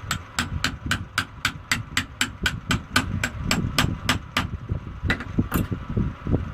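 Rapid, evenly spaced metal-on-metal taps, about four a second for some four seconds, then two more after a short pause, with the sounds of parts being handled underneath. They come from work on the feed rollers of a box strapping machine.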